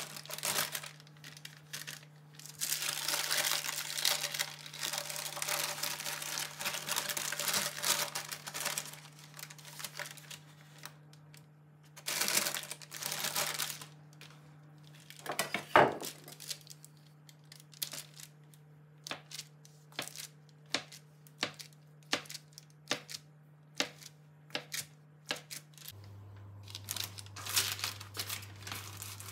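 Hands at work on food preparation: long stretches of rustling and crinkling, then a run of short, light taps and clicks from about halfway on.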